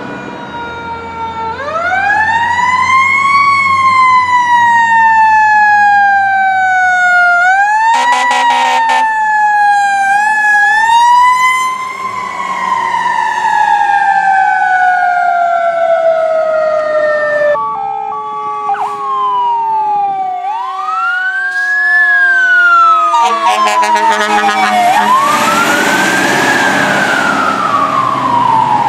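Fire truck sirens wailing, each rising quickly and then falling slowly in pitch, over truck engine noise. Short horn blasts come about eight seconds in and again near the end, and the siren sound changes abruptly twice as one truck's clip gives way to another's.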